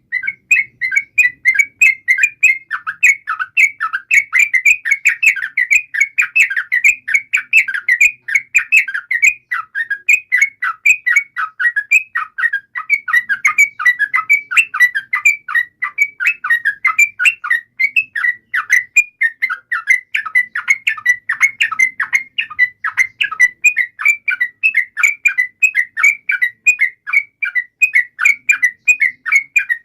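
Yellow-vented bulbul (trucukan) song: a long, rapid, unbroken run of quick bubbly notes, the fast continuous 'ropel' singing used as a lure call to set other trucukan singing.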